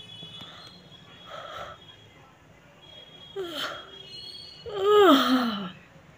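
A person yawning: soft breaths in, then a long voiced yawn near the end that slides down in pitch and is the loudest part, after a shorter falling moan a little earlier.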